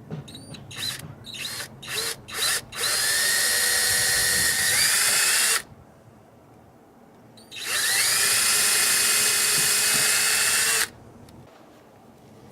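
Power drill run in several short trigger pulses, then two longer steady runs of about three seconds each, its motor whine climbing in pitch near the end of the first run and at the start of the second.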